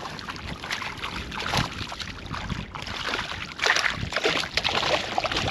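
Irregular water splashing and knocks around a kayak as a small speckled trout is reeled in and brought alongside.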